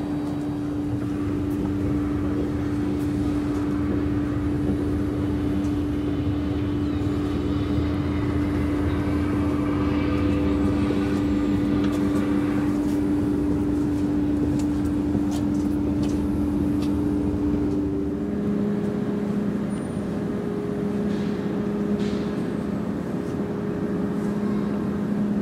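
Steady mechanical hum with a constant droning tone that shifts to a lower pitch about two-thirds of the way through, with faint scattered ticks.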